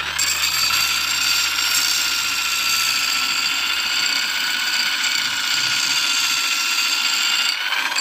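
Electric hand drill spinning an abrasive sharpening disc while a steel wood-planer blade, clamped in its sharpening jig, is ground against it: a steady high motor whine under a grinding hiss as the blade edge is sharpened.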